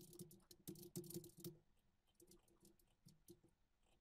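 Faint computer keyboard typing: a quick run of key clicks over the first second and a half, then a few scattered keystrokes.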